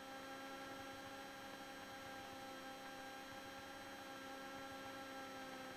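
Faint steady electrical hum made of several steady tones, heard over a light aircraft's headset intercom audio.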